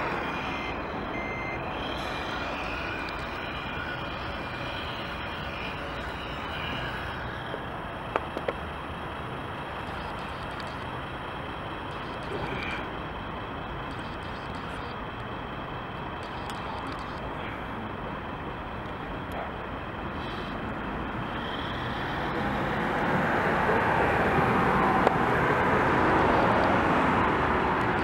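Road traffic passing on the adjacent road, growing louder near the end as a van goes by. Under it, the model truck drives over gravel, with a few short electronic beeps from its sound module early on.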